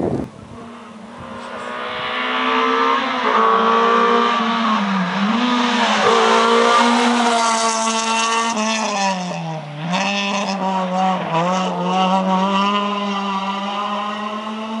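Rally car engine at high revs, passing close and heading away. Its pitch drops and climbs again several times as the driver shifts gear or lifts off. A few sharp pops come about ten seconds in.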